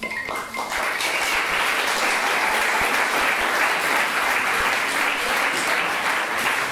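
Audience applauding, the clapping setting in about a second in and going on steadily.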